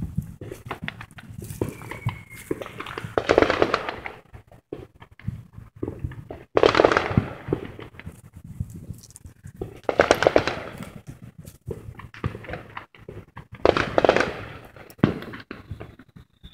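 Fireworks popping and crackling in four loud bursts, roughly every three to four seconds, with small sharp clicks in between.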